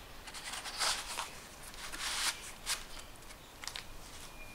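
Cardstock pages and flaps of a handmade scrapbook album rustling and scraping as they are handled and folded shut, in a handful of short rustles, the longest about two seconds in.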